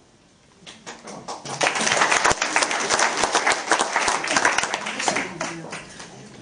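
Audience applauding: many hands clapping, starting about a second in, at full strength for a few seconds and then thinning out near the end.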